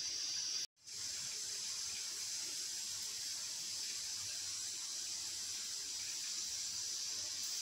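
Milky tea (chai) with loose tea leaves boiling and frothing in a metal pot on the stove: a steady hiss.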